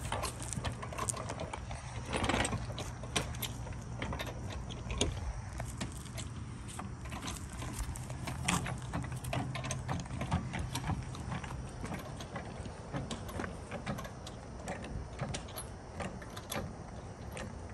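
Hydraulic floor jack being worked under the front of a car: irregular metallic clicks and clanks from the jack and its handle. A low steady hum sits underneath until about eleven seconds in.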